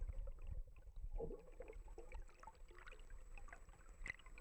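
Faint trickling water with scattered small ticks over a low rumble.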